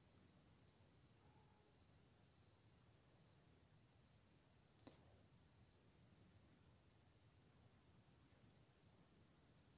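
Near silence: room tone with a faint steady high-pitched whine, and a single click about five seconds in.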